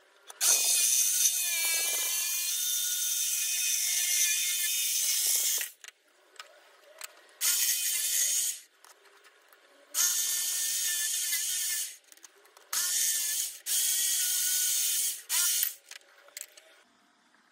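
Handheld electric jigsaw cutting a curve in a teak board, run in bursts: one long cut of about five seconds, then several short runs of one to two seconds with pauses between, its pitch wavering.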